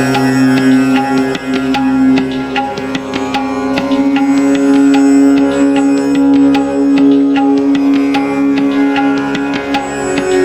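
Instrumental background music: steady held drone tones under a stream of quick plucked notes.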